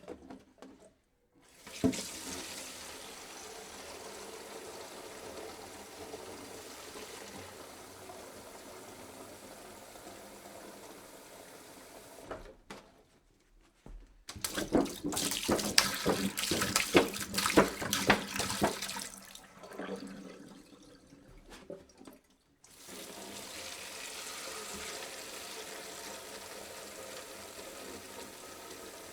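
Water pouring into a jug in separate pours with short breaks between them. First comes a steady stream for about ten seconds. Then a louder, choppier, splashing pour that tapers off, and after a brief break a steady stream again near the end.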